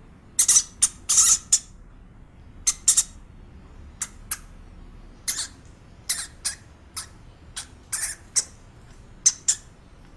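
A small animal's short, high-pitched calls, about twenty of them at irregular intervals, some in quick pairs.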